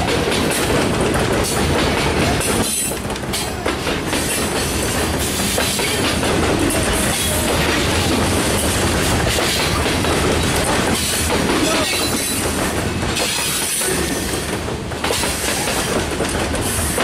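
Covered hopper cars of a freight grain train rolling past at close range: a steady rumble and rattle, with the steel wheels clacking over the rail joints.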